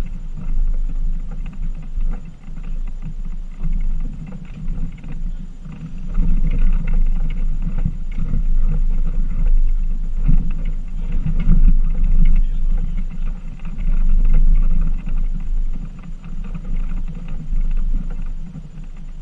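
Off-road vehicle driving a rough dirt track: the engine runs under a heavy low rumble that swells and dips. It is loudest in the middle stretch.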